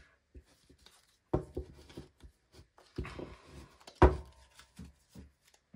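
A deck of tarot cards being handled and squared up in the hands: scattered taps and rubbing of card edges, with one louder knock about four seconds in.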